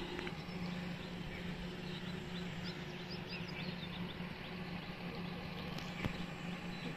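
Outdoor ambience of a construction site: a steady low hum of distant machinery, with a few faint bird chirps about midway and a single click near the end.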